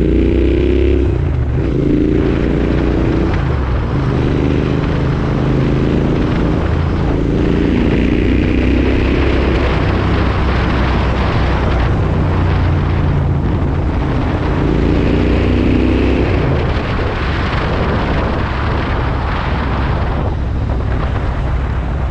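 Royal Enfield Interceptor 650's parallel-twin engine running through an AEW aftermarket exhaust while riding. The engine note climbs in pitch and drops back several times, as when accelerating and shifting up.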